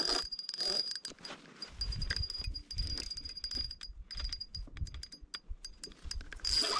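Spinning reel under the strain of a large sturgeon on the line, giving a fast run of clicks with a thin high whine that comes and goes. A low rumble sits under it from about two to five seconds in.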